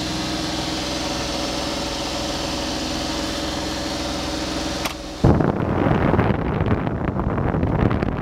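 Mitsubishi Minicab U15T's engine idling with a steady hum, heard inside the cab. About five seconds in, a switch clicks and a loud rough rush of air starts: the heater blower turned up, its airflow buffeting the microphone.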